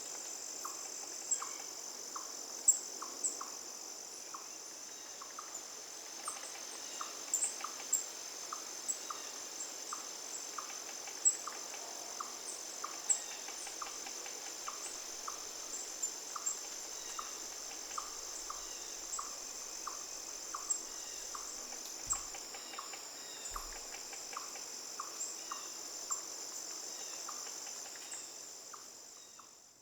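Steady high trilling of a cricket and insect chorus, with a softer chirp repeating about twice a second and a few scattered clicks. The chorus fades out near the end.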